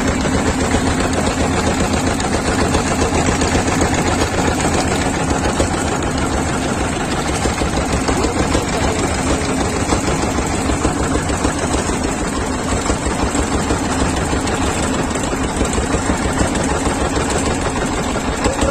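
A boat's engine running steadily at a fast, even beat.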